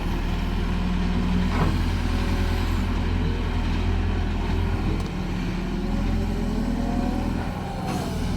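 Cat excavator's diesel engine running steadily, with a fainter whine that rises and falls in pitch over the second half.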